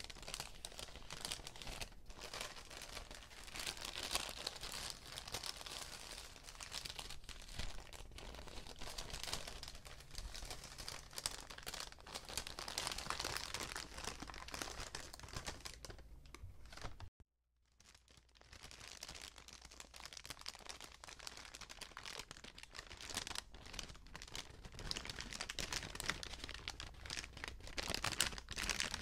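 Paper bags being crinkled and crumpled in a continuous run of dense, papery crackling. A bit past halfway it breaks off abruptly for about half a second, then builds back up.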